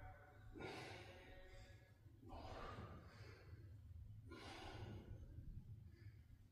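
A man breathing hard under exertion while pressing dumbbells: three faint, long, breathy exhalations about every two seconds.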